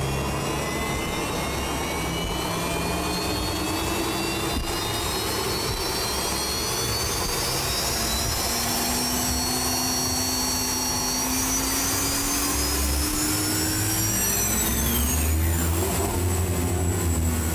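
Gas-turbine engine of a turbine-powered racing hydroplane spooling up, a jet whine rising steadily in pitch. Near the end the whine levels off and a deeper rumble grows as the boat pulls away.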